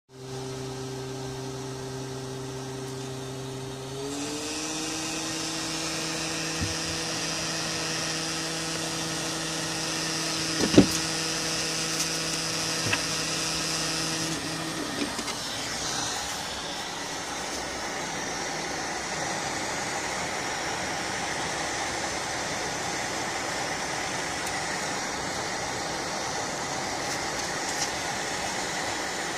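Hot air rework station's blower running steadily, a hum whose pitch steps up about four seconds in and fades into a plain rush of air by the middle, as hot air is blown onto the new solder balls on a BGA reballing stencil to melt them. A single sharp click about eleven seconds in.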